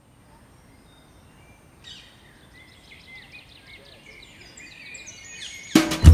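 Faint background noise with birds chirping in a run of short repeated calls from about two seconds in. Near the end an acoustic band comes in loudly with guitar and drums.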